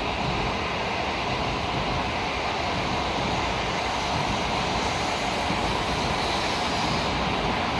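Tokaido Shinkansen N700-series train running past along the track, a steady rumble and rushing hiss of wheels and air that holds even throughout.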